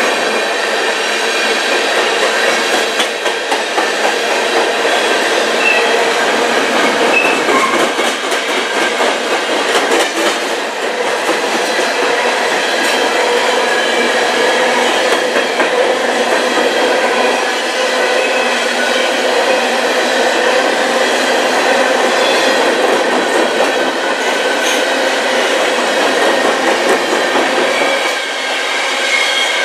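Covered hopper cars of a freight potash train rolling past close by: a steady rumble of steel wheels on rail, with clickety-clack as wheels cross rail joints and a thin, steady high ringing from the wheels.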